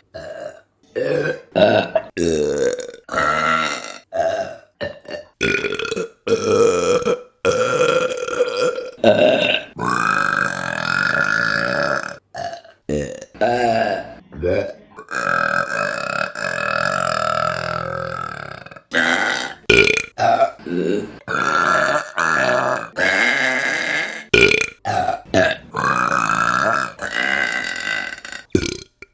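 A rapid string of women's burps, short ones mixed with long drawn-out ones of two to three seconds, each cut sharply to the next.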